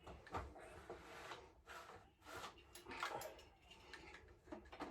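Faint, scattered clicks, taps and rustles of things being handled, several short knocks spread irregularly across the few seconds over a low room background.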